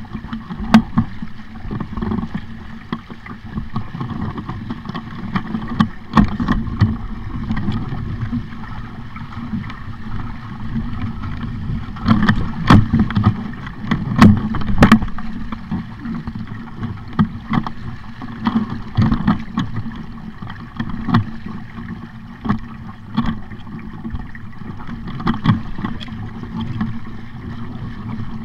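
Aboard an ISO sailing dinghy under way: wind rumbling on the microphone and water rushing past the hull, with scattered sharp knocks from the boat and its fittings throughout.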